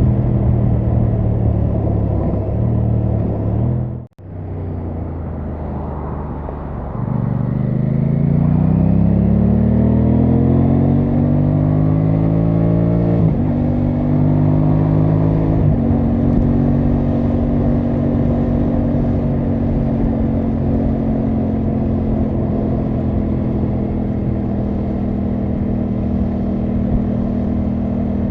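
Aprilia Tuono 660 Factory's parallel-twin engine on the move: running steadily, cutting out suddenly for a moment about four seconds in, then pulling at low revs before accelerating with rising pitch from about seven seconds in. Two upshifts break the rise, near the middle, before it settles into a steady cruise.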